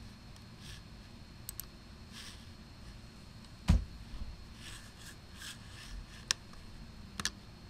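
Quiet room tone with a few sharp clicks of a computer mouse: a duller knock about halfway through, a single click a little after, and a quick double click near the end.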